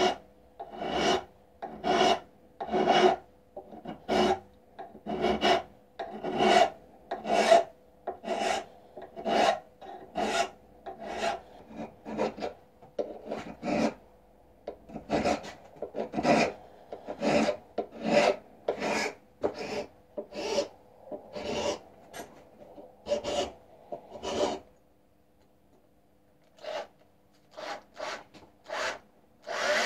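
Hand file rasping over a workpiece in a vise, in even back-and-forth strokes at about two a second. The strokes stop for a couple of seconds near the end, then a few more follow.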